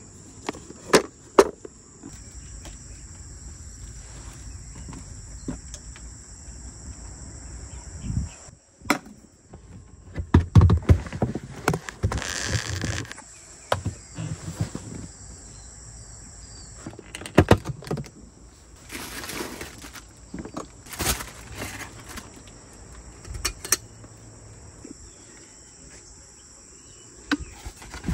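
Insects chirring steadily in a high band, over scattered knocks, clicks and rustles of things being handled, with a louder stretch of handling noise about ten to thirteen seconds in.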